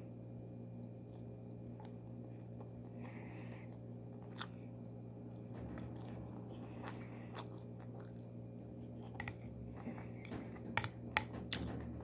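Close chewing of a mouthful of rice with cucumber and yogurt, with small wet clicks and crunches that come thicker and louder in the last few seconds. A steady low hum runs underneath.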